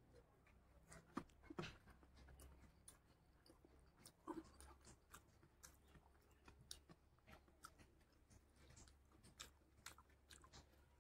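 Faint eating sounds by hand: scattered small clicks and wet smacks of chewing and of fingers mixing rice with curry, a few a second, the strongest just over a second in.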